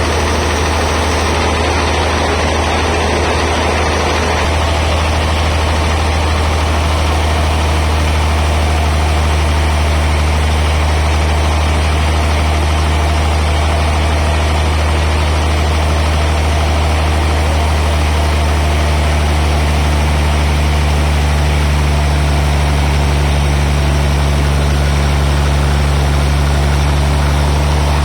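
Band sawmill machinery running steadily: a deep, even machine drone with a constant hiss above it, the drone growing louder about four seconds in.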